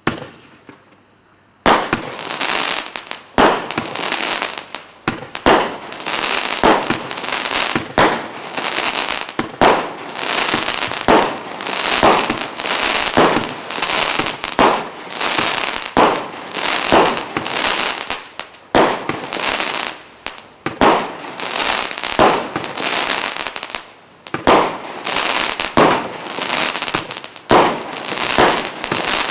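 Standard Fireworks Champagne Sparkle multi-shot cake firing. After a brief pause about a second and a half in, it sends up shot after shot, about one to two loud reports a second, with a continuous hiss between them.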